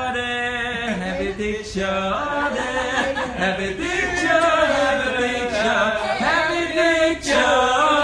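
A small group of people singing together without instruments, several voices holding long, drawn-out notes.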